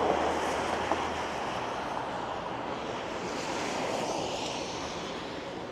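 Road traffic: tyre noise from a passing vehicle, a steady hiss that fades away gradually.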